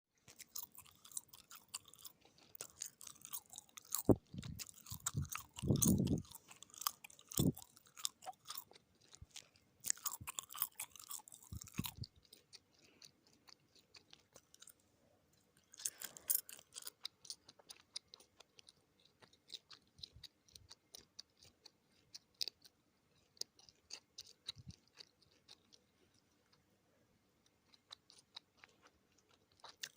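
Close-up mouth sounds of chewing gum: wet, irregular clicks and smacks, heavier and denser with low thumps in the first twelve seconds or so, then lighter and sparser.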